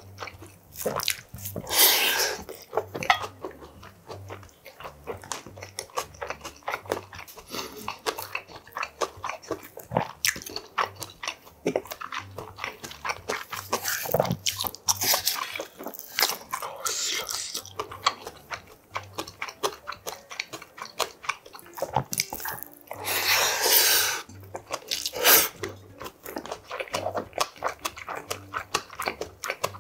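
Close-miked chewing and mouth sounds of a man eating spicy budae bokkeum rice, with many short clicks, broken a few times by longer scraping stretches as a wooden spoon works against a metal bowl.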